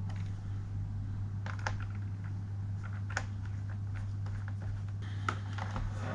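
A few light, scattered plastic clicks from a laptop keyboard and case being handled, over a steady low hum.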